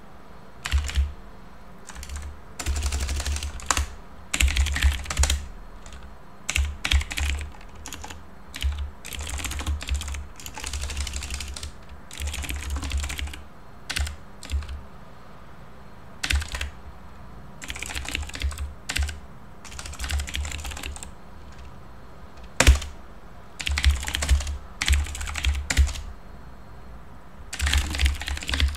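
Typing on a computer keyboard: runs of quick keystrokes broken by short pauses, with one single hard keystroke about twenty-three seconds in.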